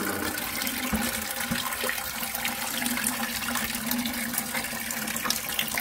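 Engine coolant draining from the radiator drain plug, a thin stream with drips splashing steadily into a plastic bucket.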